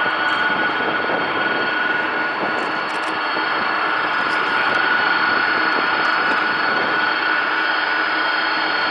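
Turbofan engines of the Boeing 747 Dreamlifter running steadily: a high whine over a broad rushing noise, swelling slightly about halfway through.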